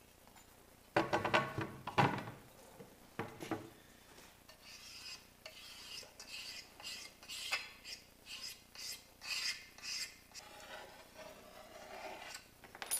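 Panes of tractor cab door glass clinking together with a short ring as one is set down on the other on the bench, a few strokes in the first few seconds. Then runs of quick scratching strokes at the glass edge as old silicon is picked and scraped off, with softer rubbing near the end.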